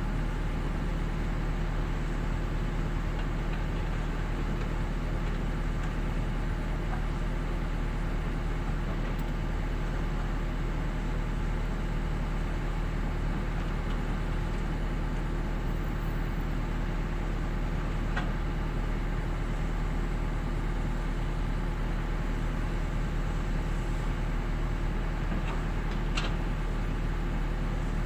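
Diesel engine of a hydraulic excavator running at a steady pitch, a continuous drone without change in speed, with a faint click about two-thirds of the way through and another near the end.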